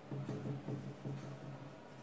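Marker pen writing on a whiteboard: a run of faint short scratching strokes over a steady low hum.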